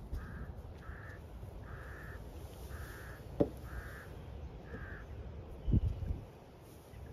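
A crow cawing six times in a steady series, about one call a second, over a low rumble of wind. A sharp knock comes about three and a half seconds in and a dull thump near six seconds.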